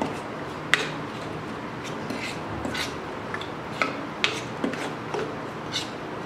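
Plastic spoon stirring whole garlic cloves through oily pickle masala in a plastic bowl: irregular light clicks and scrapes of spoon against bowl.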